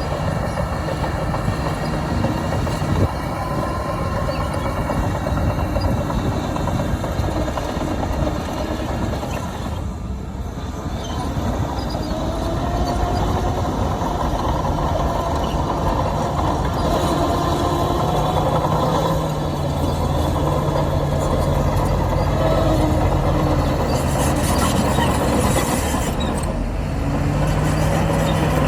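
Diesel engines of a bulldozer and dump truck running under load, the engine note rising and falling as they work.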